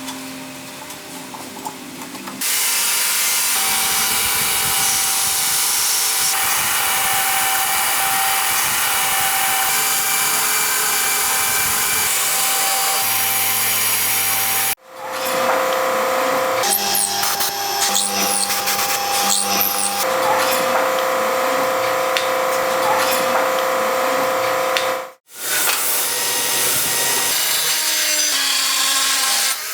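Power tool running and working steel in a string of edited clips. After a quieter opening, a loud steady machine noise with a whine sets in, and it cuts off abruptly twice, about halfway through and near the end, as each clip changes.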